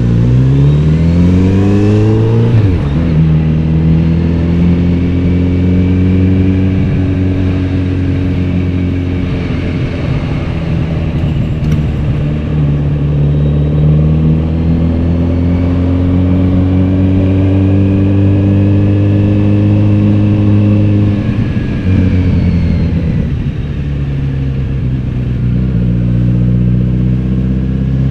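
Kawasaki Z900RS's 948 cc inline-four engine and exhaust under way: the revs climb sharply for about two and a half seconds, drop at an upshift, then pull on with slowly rising pitch. The revs drop again about 22 seconds in and the engine runs lower and steadier after that.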